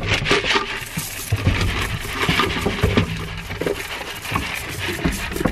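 Goat feed pellets poured from a scoop into a wooden hay feeder, a dense rattling patter of pellets hitting wood and hay that thins out after about three seconds.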